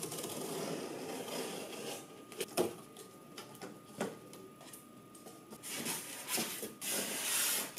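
Utility knife slicing along the packing tape on a cardboard box, a steady scraping for about two seconds. Then a few sharp knocks and cardboard rustling as the flaps are opened, and louder rustling near the end as the foam packing inside is handled.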